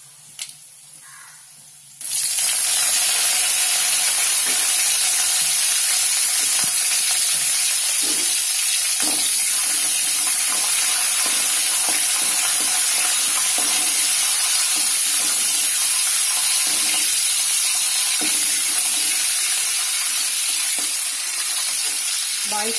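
Curry leaves hitting hot oil in a kadai with popped mustard seeds and dried red chillies: a loud sizzle sets off suddenly about two seconds in and keeps going steadily, with scattered crackles and spits. This is the tempering stage of the dish.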